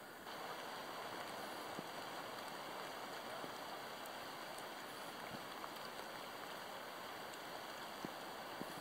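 Rain falling steadily on a slow forest river and its banks: an even hiss with a few single drops ticking through it.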